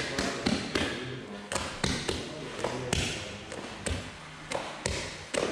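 Pieces of varkey dough being set down and pressed by hand onto a sheet-metal baking tray: a run of irregular thumps and taps, about two a second.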